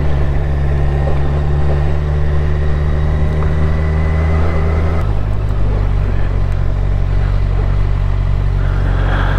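Motorcycle engine running steadily under way. About five seconds in, its low note changes abruptly.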